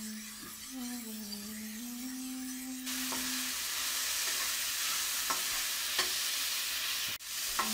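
Onion, tomato and ground spices sizzling in hot oil in a wok while a metal spoon stirs them, with a few light taps of the spoon on the pan. The sizzle grows louder about three seconds in. A low held hum that steps up in pitch runs under the first few seconds.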